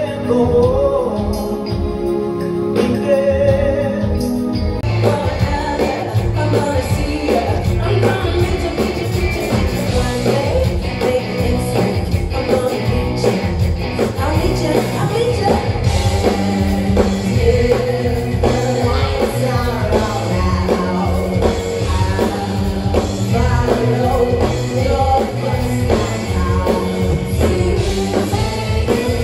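A live rock band with singers performing on stage: electric guitar, drums and lead vocals, recorded from the audience seats.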